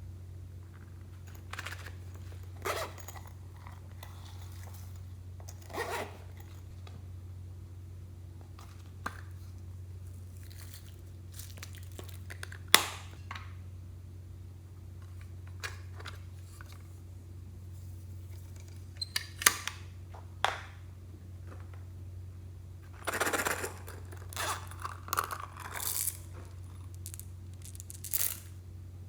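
Slime being worked by hand, mixed with makeup and clay, giving scattered short handling noises that cluster in the second half. A single sharp click comes about thirteen seconds in, all over a steady low hum.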